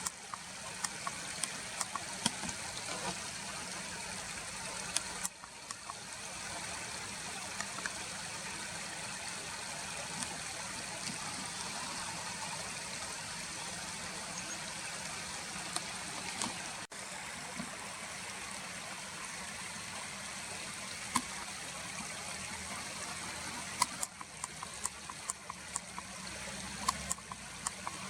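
Stream water flowing steadily, with scattered small clicks.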